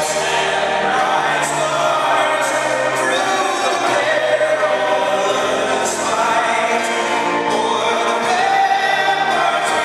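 A choir singing slow, long-held notes.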